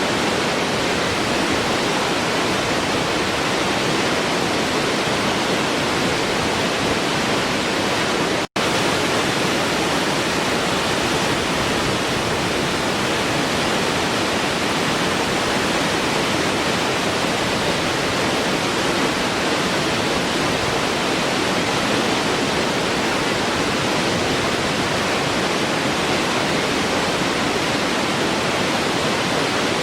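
Waterfall rushing, a steady full hiss of falling water. About eight seconds in it cuts out for an instant, then carries on unchanged.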